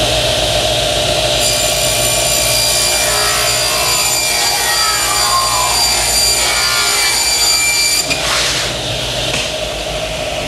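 Table saw ripping an MDF panel. It runs with a steady whine, and the blade's cutting noise starts about a second and a half in. The cut ends at about eight seconds and the saw runs on free.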